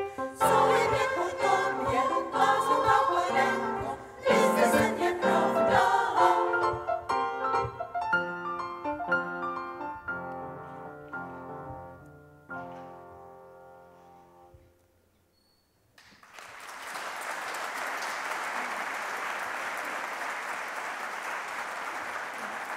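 Women's choir singing with piano accompaniment. The music fades out about fifteen seconds in, and after a brief hush the audience applauds.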